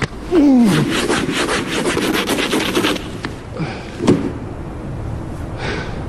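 Frozen snow and ice being scraped off a car in quick, rapid strokes, then sparser scrapes with a sharp click about four seconds in.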